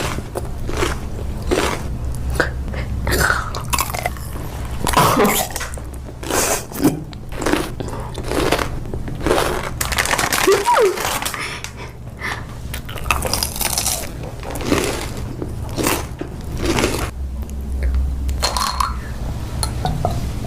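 Close-up eating sounds: a person biting into and chewing crunchy food, with many sharp, irregular crunches.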